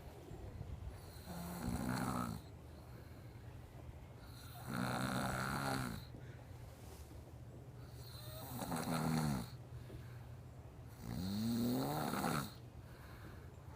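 A man snoring in his sleep: four snores, each a little over a second long, coming about every three and a half seconds.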